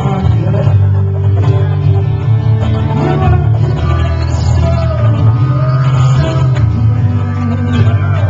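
Music: a singing voice with guitar accompaniment, playing without a break.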